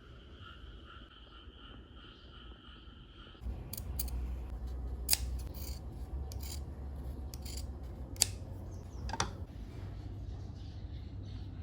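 Scissors cutting, with a few sharp snips over rubbing and handling noise.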